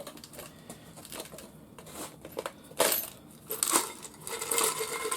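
Small metal screws clattering into and rattling around in an empty tin can. A few light clicks come first, then a sharp clatter about three seconds in and more rattling near the end.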